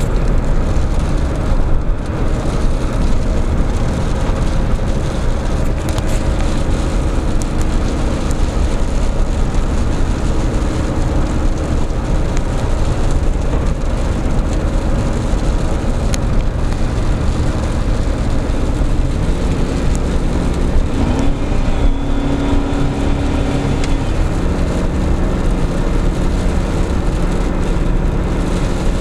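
Chevrolet Suburban running at about 60 mph on cruise control, heard from inside the cab: a steady engine drone over road noise. About twenty seconds in, the engine note rises and holds higher as the automatic transmission kicks down under load on the climb, taking the engine from under 2000 to nearly 3000 rpm.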